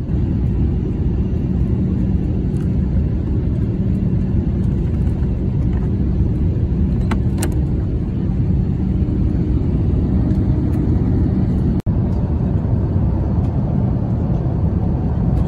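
Steady low rumble of a jet airliner's cabin in cruise flight, with a short sharp click about seven seconds in.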